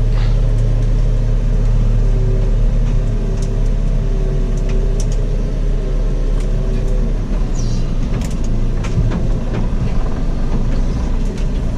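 JCB loader's diesel engine working under load as it moves a heavy fallen tree. A steady whine sits over the engine for a few seconds, and scattered sharp clicks and cracks come in the second half.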